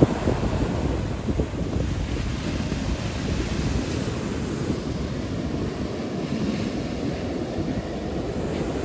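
Sea surf breaking and washing up the beach as a steady rush, with wind buffeting the microphone.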